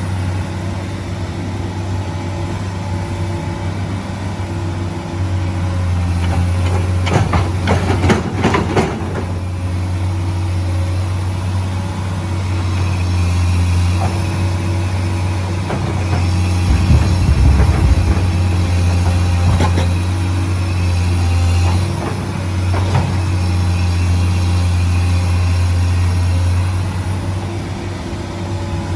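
A heavy engine running steadily, with a cluster of sharp knocks about seven to nine seconds in and a heavier low thump around seventeen seconds.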